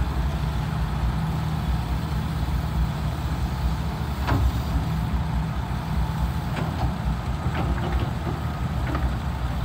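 Komatsu PC200-7 excavator's six-cylinder diesel engine running steadily as the machine swings its upper structure around on a lowboy trailer. A few short sharp clicks come about four seconds in and several more near the end.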